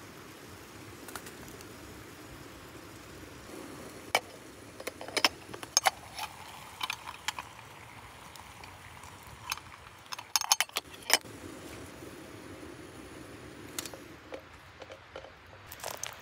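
Small metal objects clinking and rattling in short, irregular clusters, the busiest and loudest about two-thirds of the way through, over a steady faint background noise.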